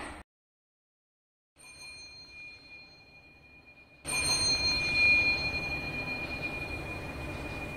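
Fujitec elevator: after a short cut to silence, a faint steady high ringing tone sets in. About four seconds in the sound jumps louder over a steady rushing noise, and the bell-like ringing swells and then slowly fades.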